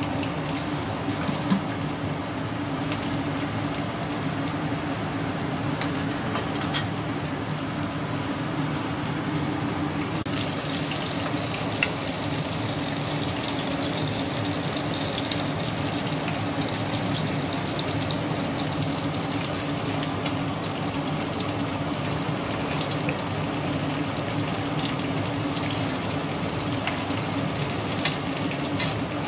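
Pieces of hairtail fish frying in a pan of hot oil: a steady sizzle with occasional sharp pops from the oil, over a low steady hum.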